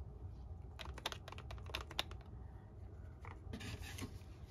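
Paintbrush scrubbing in a pan of watercolour paint to load the bristles: faint scratchy rubbing with a scatter of small ticks, most of them in the first half and another scratchy patch near the end.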